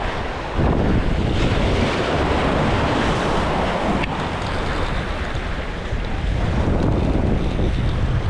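Wind buffeting the microphone over the wash of waves against the jetty rocks: a steady, rumbling noise.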